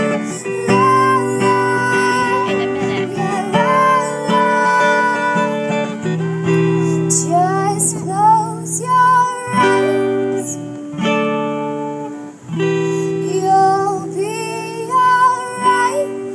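Acoustic guitar music: strummed, held chords in an instrumental passage of a song, with some wordless sung notes gliding over it.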